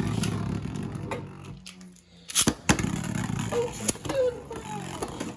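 Beyblade tops spinning in a plastic stadium: a steady whirring hum broken by sharp plastic clicks, with a short lull about two seconds in followed by a couple of sharp clicks.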